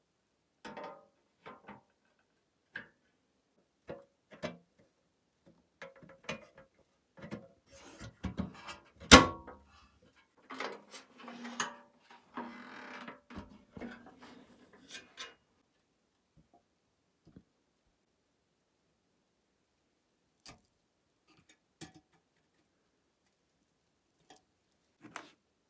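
Clicks, knocks and scraping from painted sheet-steel toy truck parts being handled and fitted together by hand, with one sharp knock about nine seconds in and a stretch of scraping a little after it, then only a few faint clicks.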